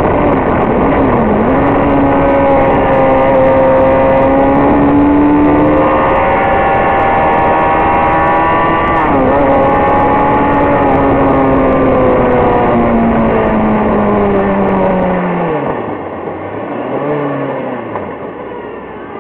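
Sport motorcycle engine heard from onboard over heavy wind rush, running at high revs with a brief dip and recovery in pitch about halfway through. The revs then fall steadily as the bike slows, and the sound turns quieter near the end, with one short blip of the throttle.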